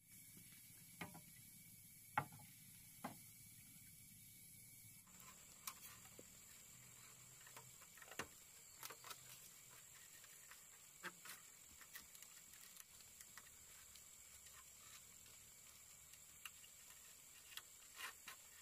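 Quiet handwork on a bamboo roof frame: sparse light knocks and clicks of bamboo poles being handled and tied in place, the sharpest about two seconds in. About five seconds in a faint steady high hiss joins the background.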